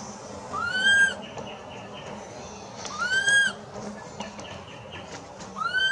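Newborn long-tailed macaque crying: three high, arched whistle-like calls about two and a half seconds apart, each rising and then falling in pitch.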